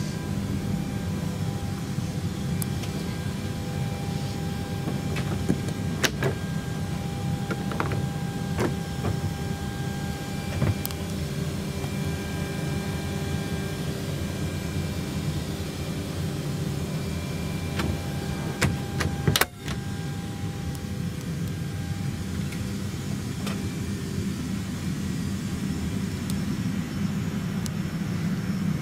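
Steady low hum of a parked airliner's cabin air system, with a few faint steady whining tones over it. Scattered clicks and knocks break in, the loudest a sharp knock about 19 seconds in.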